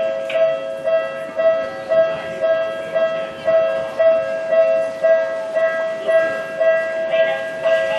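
Railway level-crossing warning bell ringing steadily, about two strokes a second, as an electric commuter train approaches the station.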